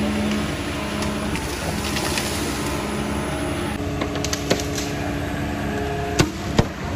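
Hydraulic excavator's diesel engine running steadily. Near the end come two sharp knocks.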